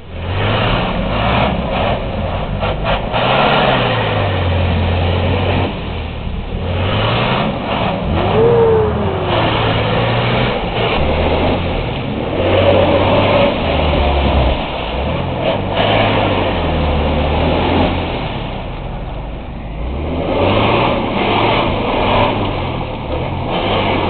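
A Mitsubishi L200 pickup's engine revs hard, rising and falling over and over as the truck sits stuck in deep mud. Its spinning wheels churn and spray the mud.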